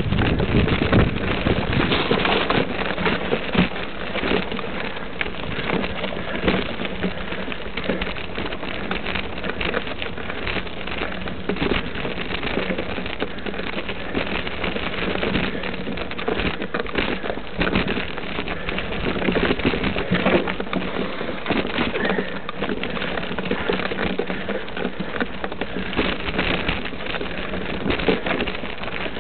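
Steady, dense crackling and rattling as the camera travels up a gravelly dirt trail: gravel crunching under the wheels or feet, mixed with rubbing and rattle on the microphone.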